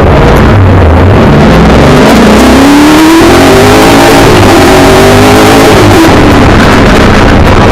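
A 5-litre V8 engine in a Milner R5 off-road racing car, heard loud from inside the car under hard acceleration. The pitch climbs, breaks about three seconds in as it shifts gear, climbs again, then drops off near six seconds as the throttle comes off.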